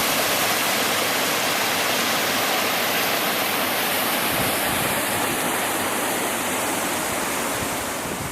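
Waterfall: river water rushing and pouring over the falls in a steady, dense rush, easing off slightly near the end.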